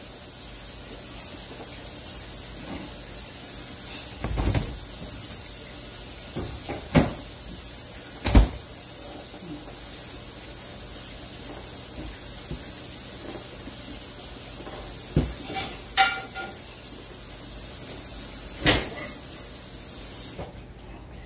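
Steady hiss that cuts off suddenly near the end, under about six knocks and clunks of kitchen things being handled, the loudest about eight seconds in.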